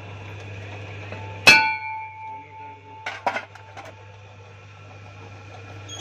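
A hollow steel propeller shaft tube struck once with a hammer, ringing for about a second, then a few lighter metallic clinks, over a steady low hum.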